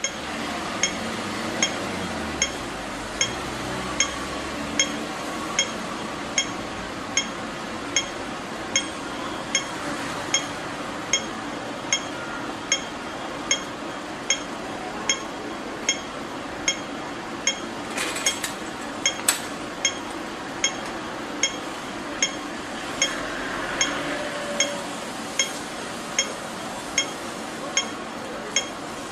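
Pedestrian crossing signal at a traffic light giving its audible cue: short, high-pitched ticks repeating evenly, a little more than one a second, over steady background noise. A brief sharp clatter is heard about two-thirds of the way through.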